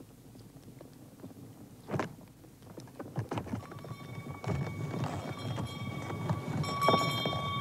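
Horse-drawn sleigh travelling over snow: a rough, uneven noise of runners and creaking wood with scattered knocks. It builds from about halfway, and a steady ringing tone comes in and grows louder near the end.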